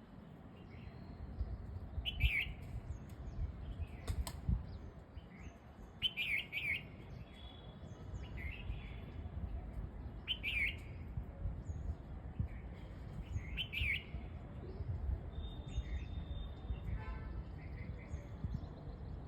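A songbird chirping: short bursts of sharp, quick chirps repeated about every four seconds, with fainter calls between them, over a steady low rumble.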